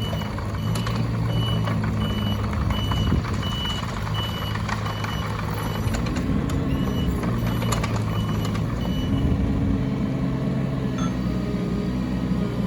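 A Bobcat E16 mini excavator's diesel engine runs steadily while its travel alarm beeps repeatedly, about one and a half beeps a second. The beeping pauses briefly about five seconds in and stops about nine seconds in, with occasional clanks of the machine working.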